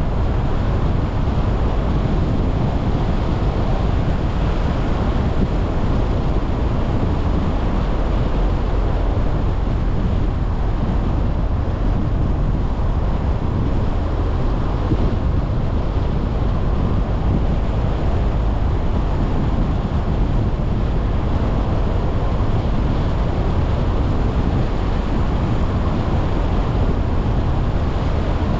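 Steady, loud rumble of wind and road noise from a car driving along a street, heaviest in the low end, with no distinct engine note.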